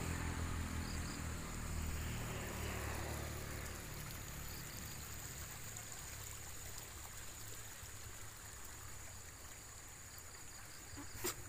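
A motorcycle engine passing and fading away over the first few seconds, leaving a steady high insect drone over faint hiss. A single sharp click near the end.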